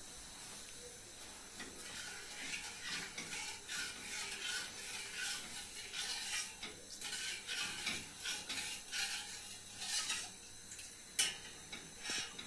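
A spoon stirring sugar and water in a pot for syrup, scraping the grains against the pot in strokes about twice a second. A sharp knock comes near the end.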